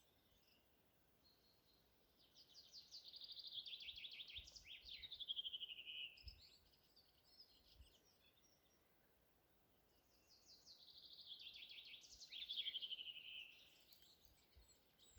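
A songbird singing the same song twice, several seconds apart: each a quick run of repeated high notes that drops lower toward the end, lasting about four seconds.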